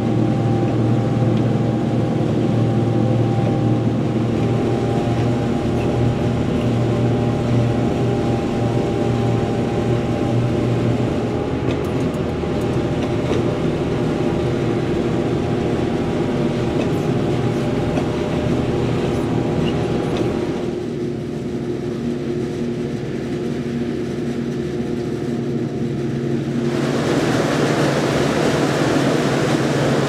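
Claas Jaguar 860 forage harvester working under load while chopping standing maize, heard from inside the cab: a steady, loud machine drone with several steady hum tones. Near the end the sound turns brighter and more rushing.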